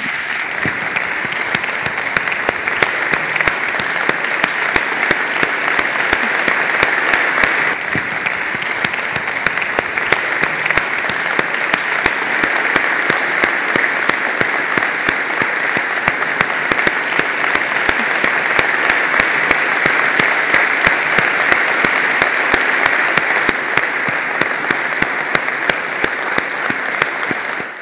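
Audience applauding steadily: many hands clapping at once in a dense, unbroken clatter.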